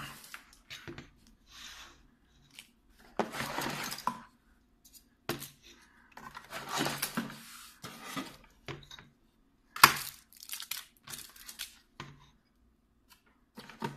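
Packaging rustling and tearing as plastic 120 mm case fans are unpacked and set down, with scattered plastic clicks and clacks; the sharpest click comes about ten seconds in.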